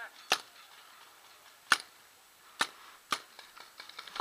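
Paintball markers firing single shots: four sharp pops at uneven intervals over about three seconds.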